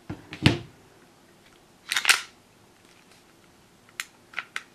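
Clicks and clacks of a Well G197 gas blowback airsoft pistol being handled with its magazine out: a sharp clack with a dull knock about half a second in, a louder double clack about two seconds in, then three lighter clicks near the end as the takedown lever and slide are worked.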